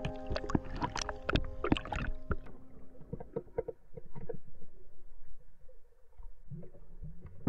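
Muffled underwater sound picked up by a submerged camera: a dense run of sharp clicks and knocks for the first couple of seconds, then quieter, duller water noise with scattered soft knocks.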